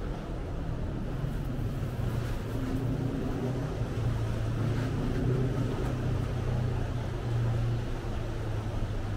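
Saen Saep canal express boat's diesel engine running with a steady low hum.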